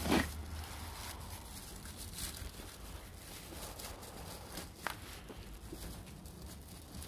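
Light handling noises as kerosene firelighters are set in the top of a metal frost-protection heater: a sharp knock right at the start and a small click about five seconds in, over a low steady rumble.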